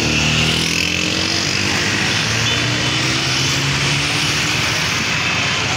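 Road traffic with motorcycles passing close by, their small engines running with a steady hum that fades about four and a half seconds in, over the constant noise of traffic.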